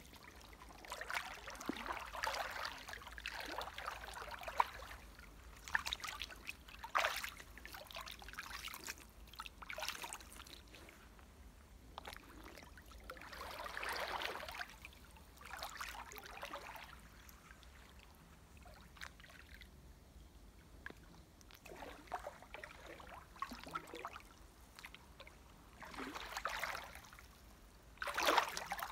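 Shallow creek water splashing and sloshing as a person wades, sits down and shifts about in it, in irregular bouts with quieter stretches between.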